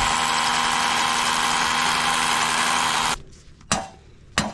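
Cordless drill boring into concrete, a steady loud whir and grind that cuts off about three seconds in. Then a hammer strikes a wooden form stake twice, two sharp knocks under a second apart.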